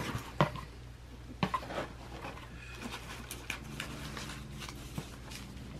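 Hands rummaging through a cardboard shipping box, rustling the packing filler and wrapped items, with scattered light clicks and taps.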